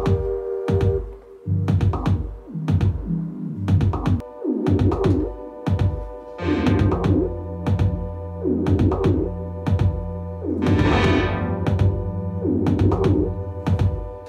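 Electronic beat made in Ableton with a Push 2 controller: drum-machine hits in a steady rhythm over a synth bass line, with a short noisy synth swell about eleven seconds in.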